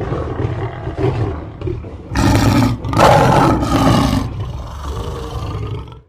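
Lion roaring: low grunting rumbles, then two loud roars about two and three seconds in, easing back to lower grunts before cutting off abruptly near the end.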